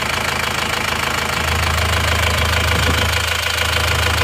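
Isuzu Panther Touring's freshly rebuilt four-cylinder turbo-diesel idling with a steady diesel clatter. Its low drone grows stronger about a second and a half in as the oil filler cap comes off. The valve noise still needs adjusting.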